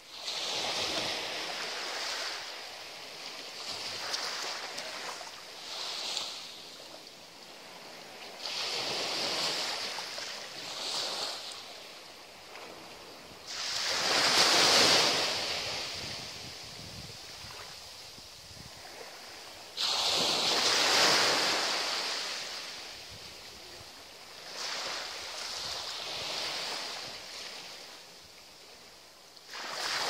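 Small waves on a calm sea breaking and washing up the sand, swelling and fading every few seconds, with the biggest washes near the middle and about two-thirds of the way through.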